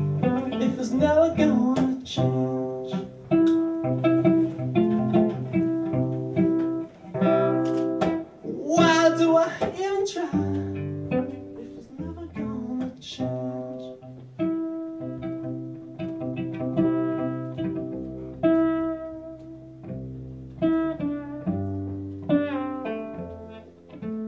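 Solo cello played pizzicato, its strings plucked in a running pattern of low notes, with a man singing over it in places.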